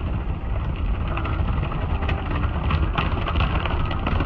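Automatic car wash spraying soapy water and running its brushes over the car, heard from inside the cabin: a steady low rumble under a dense, rain-like patter of water on the glass and body.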